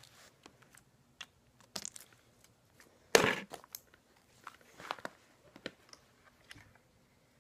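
Slime being stretched and poked by hand: a string of short, irregular squishes and clicks, with a louder burst about three seconds in.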